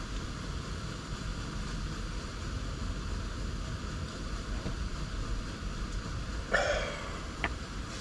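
Steady low rushing noise, with a brief higher-pitched sound about six and a half seconds in and a single sharp click shortly after.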